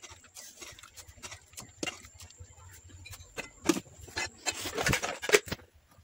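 Aluminium cooking pots knocking and scraping while food is mixed by hand in one of them: scattered light clicks, with denser, louder clatter in the second half.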